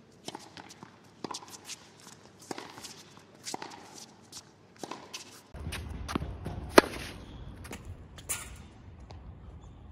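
A run of quick, irregular clicks, a typing-style sound effect as on-screen text fills in. After that comes open-air court noise and, about seven seconds in, one sharp crack of a tennis racket striking the ball on a forehand.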